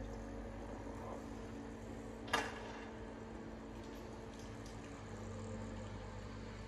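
Building-site ambience: a steady machine hum over a low rumble, with a single sharp knock about two and a half seconds in.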